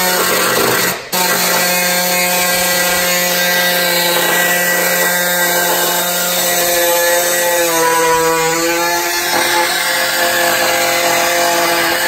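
Pneumatic body saw cutting through the sheet-metal front guard of a Ford Ranger PX for a snorkel opening. It runs steadily with a loud, even whine, stops briefly about a second in, and its pitch dips and wavers for a moment around eight seconds in as it bites into the metal.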